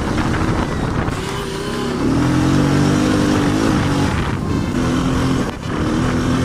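Off-road buggy engine running under throttle on a dirt track, its pitch rising and falling as the throttle changes, with a brief drop about five and a half seconds in.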